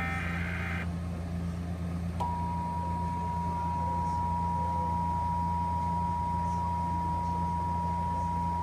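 The last EAS SAME header data burst cuts off a little under a second in; about two seconds in the Emergency Alert System attention signal starts, a steady two-tone 853/960 Hz tone held without a break. A constant low hum runs underneath.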